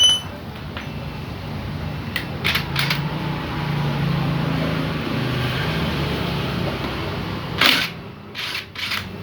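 Metal hand tools clicking and clinking against motorcycle engine parts during disassembly. There is a short ringing clink at the start, a few sharp clicks about two to three seconds in, and a louder knock near the end.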